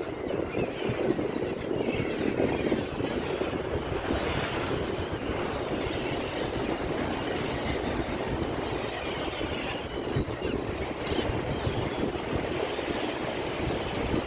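Sea waves breaking and washing ashore: a continuous rushing surf noise that swells every few seconds.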